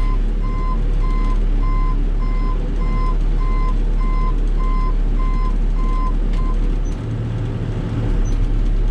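Volvo BL70 backhoe's diesel engine running steadily while an electronic warning beeper sounds about twice a second. The beeping stops about seven seconds in, and the engine note changes just after.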